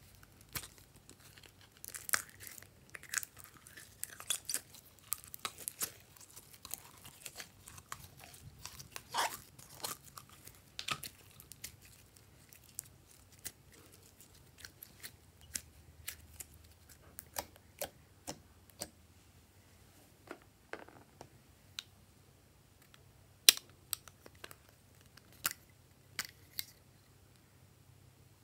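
Sticky glitter slime crackling and popping as it is squeezed from a plastic tube and stretched by hand, in quick bursts of small crackles that thin out after the first half. A few sharp clicks stand out near the end.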